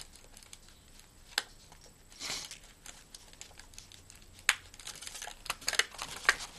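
Handling noise from a nylon gear pouch and a small sewing-kit case being folded and tucked in: soft rustling with scattered light clicks and taps. There is a sharper click about a second and a half in, another one about two-thirds through, and a quick run of clicks near the end.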